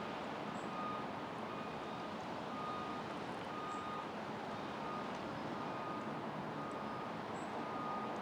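A vehicle reversing alarm beeping a short, clear tone a little more than once a second, over a steady hum of engine and traffic noise.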